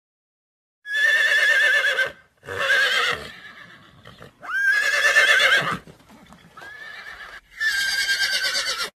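Horse whinnying several times: four loud whinnies with a quavering, wavering pitch, and a quieter one shortly before the last.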